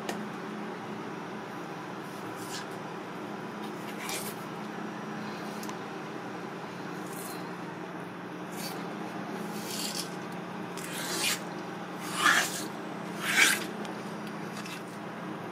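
Wet rubbing and rasping swishes of hands peeling the skin off a raw cuttlefish mantle on a plastic cutting board: a few short swishes, the two loudest near the end, over a steady low hum.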